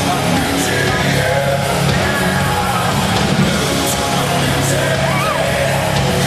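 Loud heavy rock music with a sung or shouted vocal over distorted guitars and drums.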